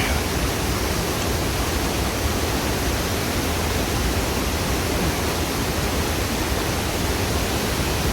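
Mountain waterfall rushing steadily, an unbroken wash of falling water with a strong low rumble.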